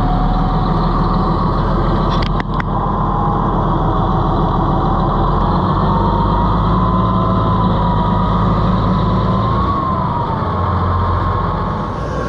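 Komatsu bulldozer running, its diesel engine steady with a wavering whine over it. Two sharp knocks about two seconds in, and the engine note shifts near the end.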